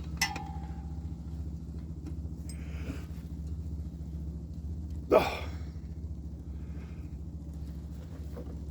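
A metal hand tool clinks sharply against the truck's belt tensioner and rings briefly just after the start, over a steady low hum. About five seconds in comes a short, loud sound that falls in pitch.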